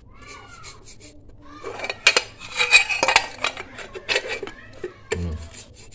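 An old toothbrush scrubbing softened paint off a motorcycle engine case cover and knocking about in a plastic tray of thinner mixed with petrol: a scraping clatter with many small clicks, loudest in the middle.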